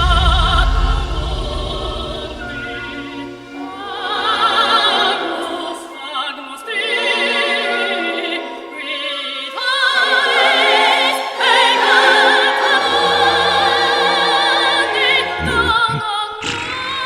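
Operatic singing with a heavy vibrato over orchestral music.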